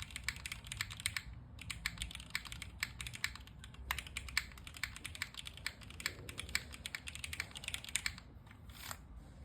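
Typing on a Neo60 Core mechanical keyboard: rapid runs of keystrokes clacking, with a short break about a second in, stopping about eight seconds in. A brief soft rustle follows near the end.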